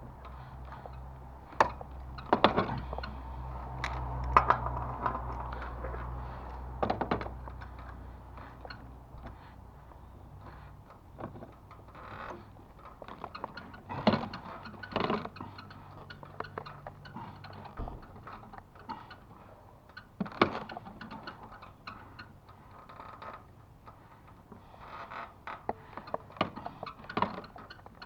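Irregular knocks, clanks and scrapes of metal being handled, over a steady low hum that stops about eleven seconds in and returns briefly later.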